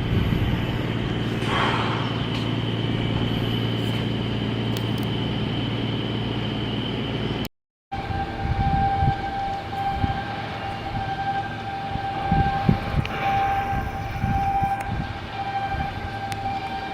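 Machinery running with a steady low hum and a high whine. After a brief cut, a different steady whine sounds, with scattered knocks.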